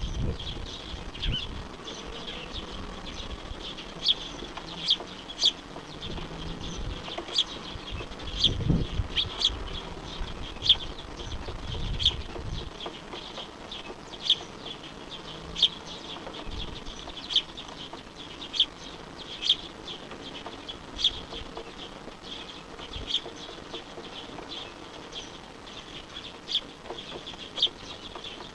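Small bird giving short, sharp high chirps, repeated about once every second or so. A low rumble underlies the first half.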